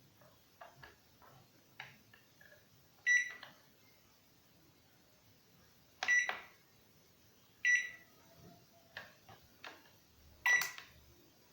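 LG microwave oven's control-panel beeper giving four short, high beeps as the push buttons wired in place of its touch pad are pressed, with faint clicks in between. The beeps show that the control board is registering the key presses.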